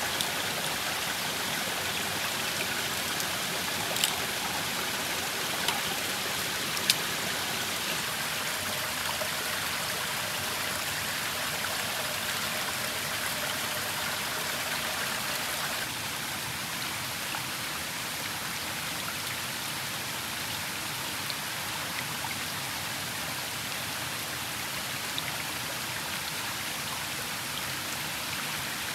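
Rocky forest stream flowing steadily over stones, with a few sharp knife clicks in the first seven seconds.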